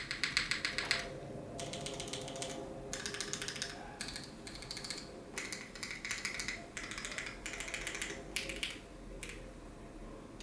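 Glacier80 custom mechanical keyboard with retooled Cherry MX Black linear switches on a polycarbonate plate and GMK keycaps, its modifier keys pressed in quick runs of clacks. There are about eight bursts, each roughly a second long, with short pauses between them.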